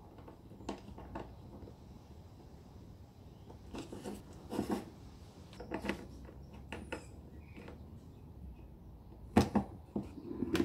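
Small clicks and taps of a screwdriver and a plastic light fitting being handled as wires are screwed into its terminals, with a couple of louder knocks near the end as the fitting and plastic bucket are handled.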